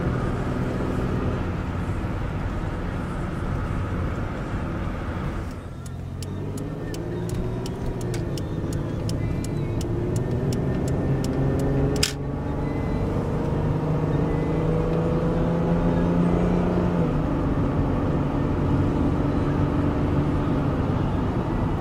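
Cabin sound of a 1990 Toyota Camry LE's V6 running under way, with engine hum and road noise. Partway through, the turn signal ticks steadily for several seconds, followed by one sharp click. Later the engine note rises slowly and then steps down as the automatic transmission shifts.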